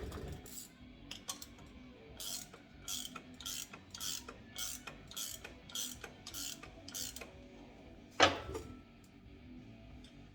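Hand ratchet wrench clicking in a run of about nine even strokes, roughly one every half second. A single loud clank about 8 seconds in.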